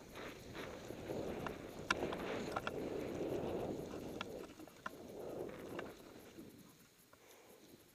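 Snowboard carving through deep powder snow: a rushing, hissing swish that swells with each turn, with scattered sharp clicks throughout. It dies down after about six seconds.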